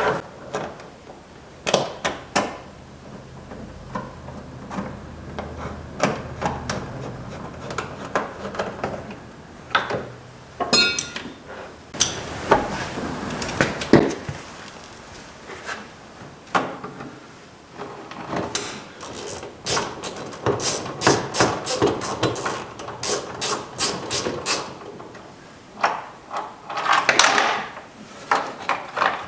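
Clicks, knocks and rattles of parts being handled and fitted back onto a pickup truck's door during reassembly. A quick run of ticks comes about eleven seconds in, and a longer stretch of rapid clicking follows from about eighteen to twenty-five seconds.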